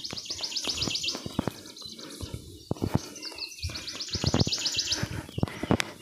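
A bird's fast, high trill, heard twice, each lasting about two seconds, over footsteps on a dirt forest path.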